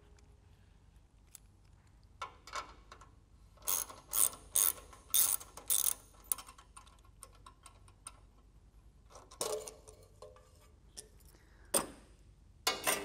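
Hand ratchet wrench clicking in short runs as a nut on the truck's exhaust clamp is loosened, then a couple of sharp metal knocks near the end.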